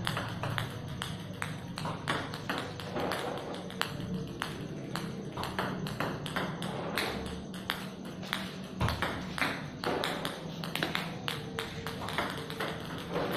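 Table tennis ball clicking in quick, irregular succession as serves are practised: paddle strikes and bounces off the table and the hard floor.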